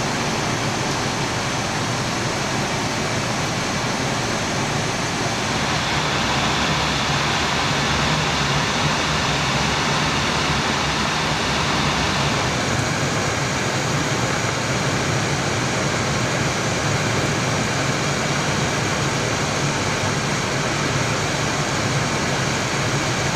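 Steady rushing flight-deck noise of an Airbus A320 on approach, airflow and air-conditioning hiss over a low hum. The hiss grows brighter about five seconds in and again about halfway through.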